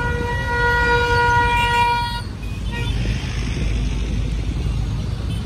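A vehicle horn held on one long steady note, cutting off suddenly about two seconds in, over the low rumble of passing street traffic.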